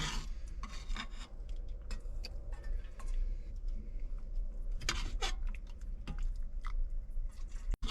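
Utensils clinking and scraping against a pot and a bowl as chicken soup is served, in scattered light clicks with a couple of louder scrapes about five seconds in, over a steady low rumble.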